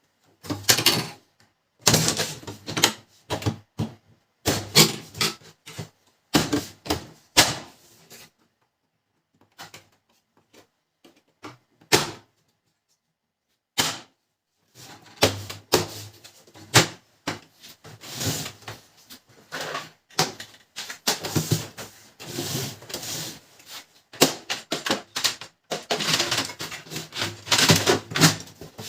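Pantum M7102DW laser printer parts being handled and fitted back together: bursts of irregular plastic clicks, knocks and rattles. A quiet stretch of several seconds about a third of the way in is broken by two single knocks, then the clatter resumes.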